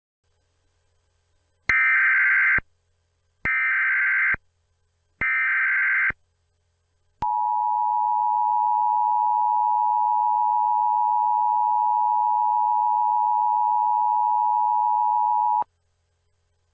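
Emergency Alert System header: three short bursts of warbling SAME data tones, each just under a second, followed by the steady two-tone EAS attention signal held for about eight seconds, which cuts off abruptly.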